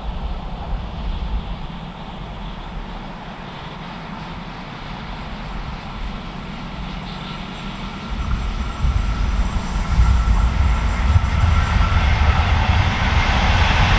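A train drawing near on the main line: a low rumble that grows louder from about eight seconds in, with a rising hiss and a faint steady whine joining near the end.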